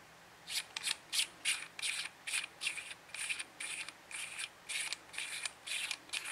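Threaded turret cap of a Burris Droptine rifle scope being unscrewed by hand: a short scraping rasp with each finger twist, about three a second, starting about half a second in.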